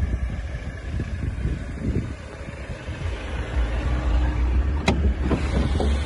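A steady low rumble, then a sharp click about five seconds in followed by a few lighter knocks as the bonnet of a 2013 Mercedes-Benz E250 is unlatched and raised.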